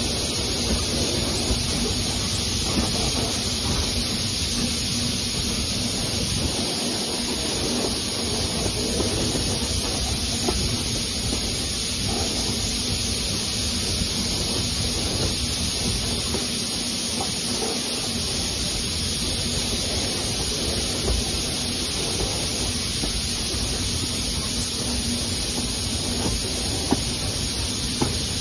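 Train hauled by the 4-6-0 steam locomotive BR Standard Class 4MT 75069 running along, heard out of an open carriage window: a steady rush of wind and wheel-on-rail noise, with one sharp click near the end.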